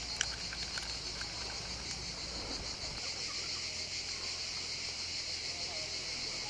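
A steady, finely pulsing chorus of summer insects. There is a sharp click about a quarter of a second in, followed by a few lighter ticks, and a low hum underneath stops about halfway through.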